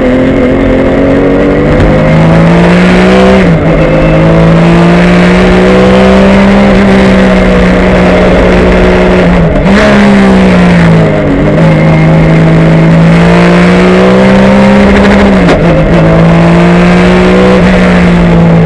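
Porsche 996 Cup race car's 3.6-litre flat-six engine running hard under racing load, heard loud from inside the cockpit. The engine note climbs slowly and dips sharply and briefly four times, recovering each time.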